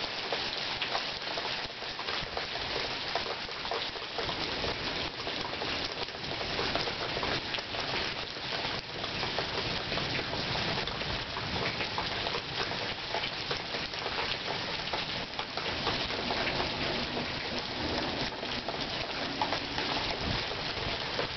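Steady rain from a passing thunderstorm, a continuous hiss dotted with many sharp ticks of individual drops landing close by.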